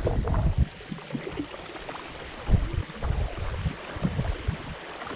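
Water lapping and splashing, with a few low irregular bumps.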